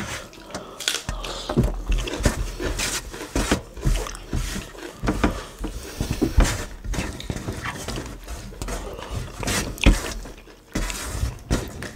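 Close-up eating sounds of two people eating rice by hand: chewing, wet lip smacks and breathing, with fingers pushing rice across a metal tray, in irregular clicks and smacks.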